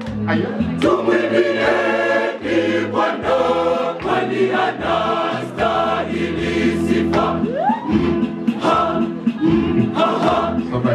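Mixed church choir of men and women singing a gospel song in several parts, with sustained low notes under the melody.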